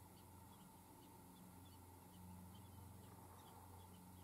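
Near silence: a faint steady low hum, with faint, scattered short chirps from distant birds.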